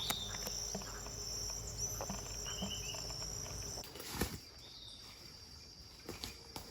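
Forest insects keep up a steady high-pitched song, with short bird calls over it. About four seconds in there is a knock, after which the insect song is quieter.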